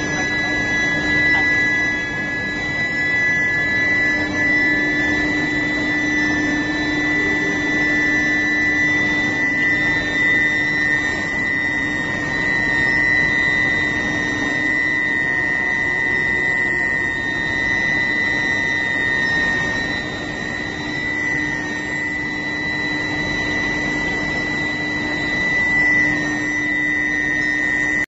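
Round-billet induction heating furnace running: a steady high-pitched whine from the induction coils with a lower steady hum beneath, over an even din of machinery from the roller feed line.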